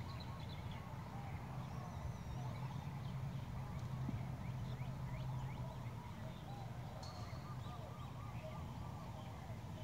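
Birds chirping and calling, with many short calls and a run of repeated arching calls in the second half. A low steady hum lies underneath and fades after about six seconds.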